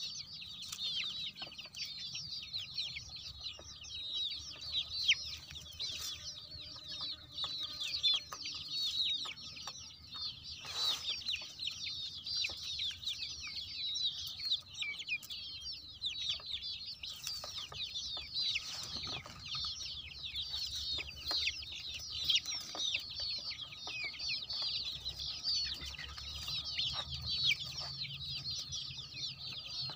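A large flock of young country chickens (naatu kodi chicks) peeping nonstop, many short, high, falling chirps overlapping into a dense chatter.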